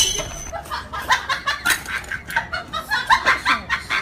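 Young puppies yipping and squeaking in quick, short, high-pitched calls, several a second and overlapping.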